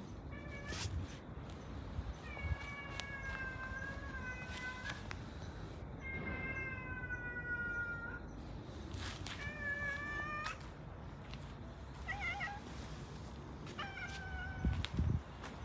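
A cat meowing about six times, several of the meows long and drawn out over two to three seconds, with shorter ones between: meowing to be fed.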